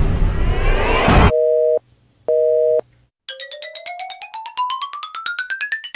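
A string of edited sound effects. First a loud rising sweep of noise cuts off about a second in. Then come two half-second two-tone beeps of a telephone busy signal, and finally a fast run of short notes, about nine a second, that climbs steadily in pitch.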